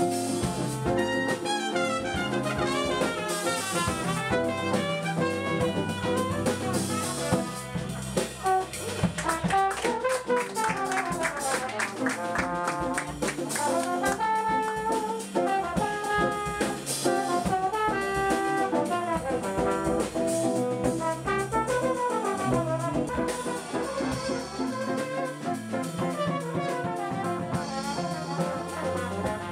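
Jazz played by a small brass-led band: trumpet and trombone carrying fast melodic lines over a drum kit.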